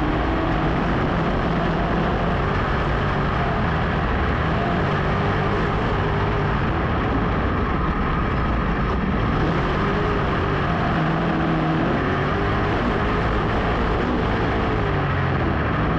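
Big-block dirt modified race car engine running hard at racing speed, heard from on board, its note rising and falling as it goes through the corners.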